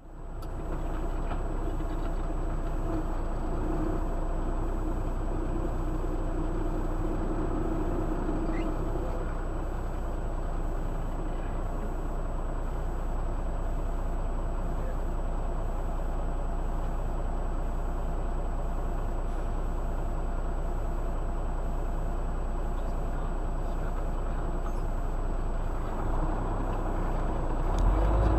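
Commercial truck engine idling steadily, heard from inside the cab while stopped at a light. Near the end it grows louder as the truck starts to pull away.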